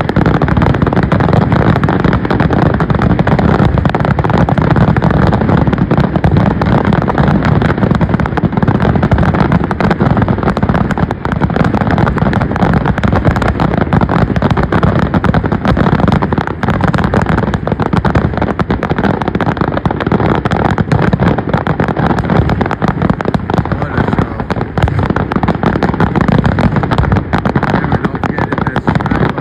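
Loud, dense fireworks barrage: many aerial shells bursting in rapid, overlapping booms without a pause.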